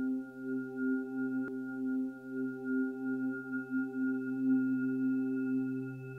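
Background music: a sustained, steady drone chord of held tones, with a faint click about a second and a half in.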